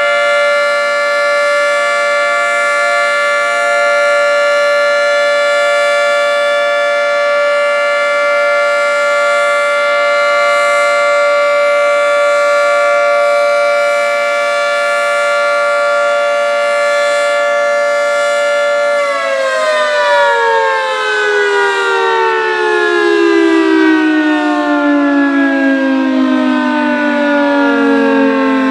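Federal Signal 3T22A three-tone siren sounding a steady alert signal, a sustained chord. About 19 seconds in, the chord begins sliding steadily down in pitch as the siren winds down.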